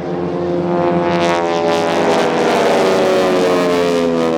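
Radial piston engines of AT-6 Texan aircraft droning with a loud propeller rumble; the pitch slides down about halfway through as the planes pass.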